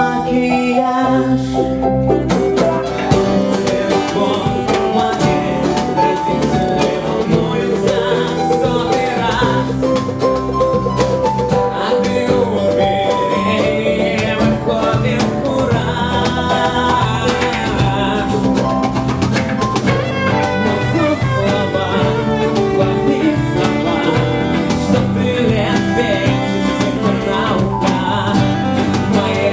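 A band playing a song live, with the full drum kit coming in about two seconds in and the music carrying on steadily.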